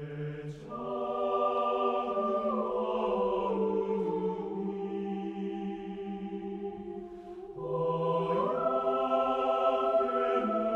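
Choir singing slow, held chords in several parts. The voices swell in just after the start, ease off around seven seconds in, then move to a new, higher chord.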